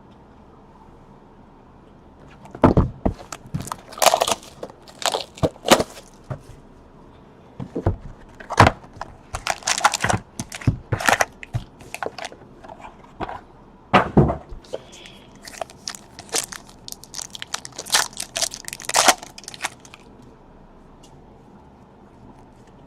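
Crinkling, tearing and snapping of trading-card packaging as the next sealed box of cards is opened, in irregular sharp crackles with short pauses between.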